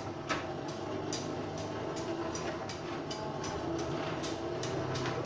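Forge blower running steadily, pushing air into the fire, with light clicks repeating about twice a second.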